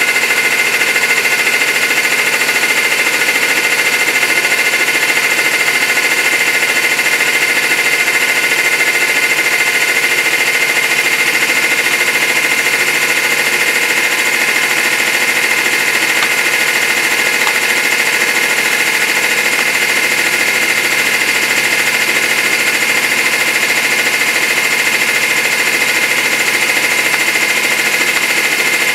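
Hydraulic press pump running steadily as the ram slowly comes down on an apple and crushes it: a loud, even hum with a high steady whine that does not change as the ram meets the load.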